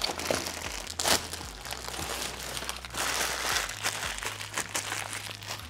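Plastic courier mailer bag and plastic wrapping crinkling and rustling as they are pulled off a cardboard box and crumpled by hand, with a sharp crackle about a second in.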